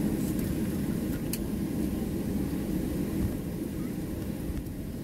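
Cabin noise of a Boeing 737-700 taxiing: a steady low rumble from its CFM56-7B jet engines at taxi power, heard from inside the cabin, with a brief sharp click about a second in.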